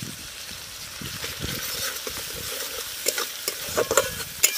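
Masala of spices, tomato and green chilli frying in mustard oil in a metal wok, with a steady sizzle. From about three seconds in, a flat metal spatula stirs it, scraping and clacking against the pan.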